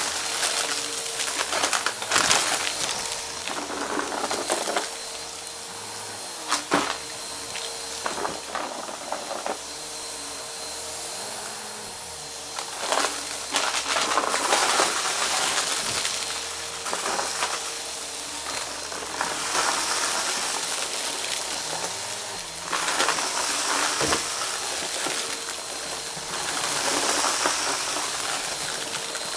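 Vacuum cleaner running with a steady hiss of air and a faint motor whine, its brushroll crunching and crackling through a dry crunchy debris mix, with scattered sharp cracks.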